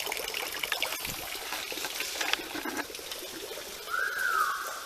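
Water trickling and dripping, with many scattered small taps. About four seconds in there is a short, falling, whistle-like tone.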